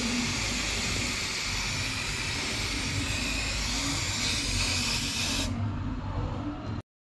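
Aerosol spray-paint can spraying paint onto a metal motorcycle luggage carrier: one continuous hiss that stops about five and a half seconds in.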